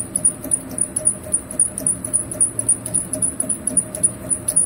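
Hafco AL-356V metal lathe running with a 10 mm end mill cutting into the spinning workpiece. A rapid, even high chirping repeats about six times a second over a steady pulsing machine hum.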